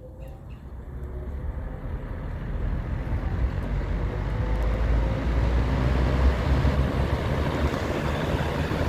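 Electric box fan starting up, its rushing air noise building over the first few seconds as the blades come up to speed, then running steadily.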